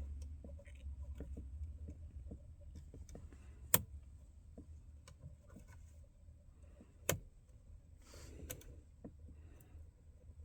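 Faint small metallic ticks and clicks of a lock pick working the wafers inside a Ford HU101 ignition lock cylinder, with two sharper clicks, one about a third of the way in and one about two-thirds through, over a low hum that fades away in the first half.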